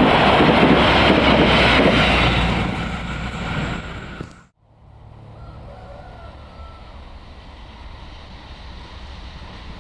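A passenger train rolling past with a loud rushing noise of wheels and wind, fading away over a couple of seconds. After a sudden cut, the low distant rumble of an approaching diesel locomotive.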